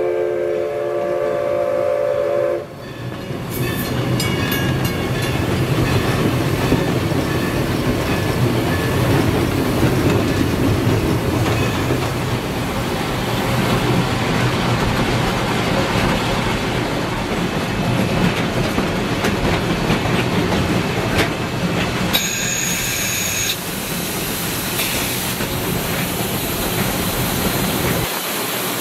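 Steam locomotive #11, a 2-6-0, sounding its steam whistle, which cuts off about two and a half seconds in. After that comes the steady running noise of the engine and its wheels heard from inside the cab, with a brief high-pitched tone about three quarters of the way through.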